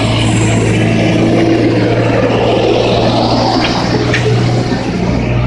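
Engine of a small yellow site dumper running steadily as it drives close past.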